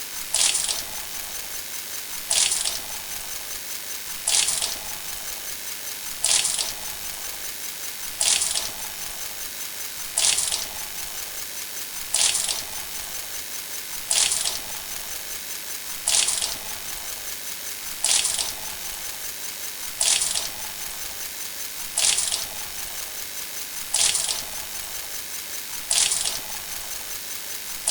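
A short, bright sound effect repeating about every two seconds, each hit sharp at the start and quickly fading, over a steady fast ticking underneath.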